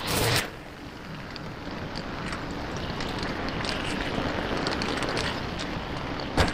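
Brush cutter running steadily as it clears weeds, with faint scattered ticks. Loudness drops suddenly about half a second in, then slowly builds again.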